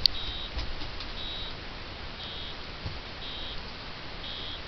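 A small electronic beeper sounding a short, high beep about once a second, evenly and without a break, over a faint hiss. There is a sharp click right at the start.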